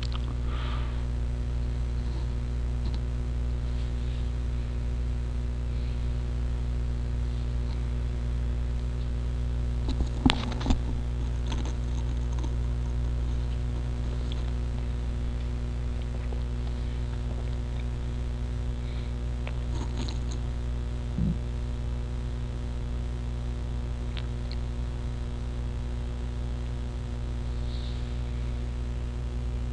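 A steady low electrical hum, with a few faint clicks around ten seconds in and again around twenty seconds in.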